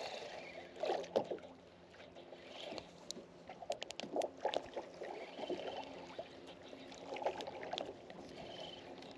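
Water slapping and lapping against a small skiff's hull, with irregular knocks and clicks from a spinning rod and reel being worked during a retrieve.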